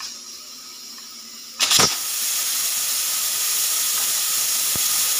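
Pressure cooker venting steam with its whistle weight lifted off: a faint hiss, then about one and a half seconds in a sudden burst and a loud, steady jet of steam hissing from the open vent, releasing the pressure after cooking with the flame turned off.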